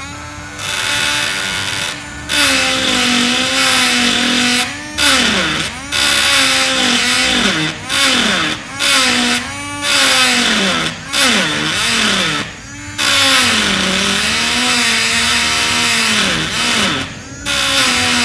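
Cheap battery-powered electric engraving pen buzzing as its vibrating tip scratches into wood. It goes in short strokes, with about ten brief breaks where the buzz drops in pitch and then picks up again.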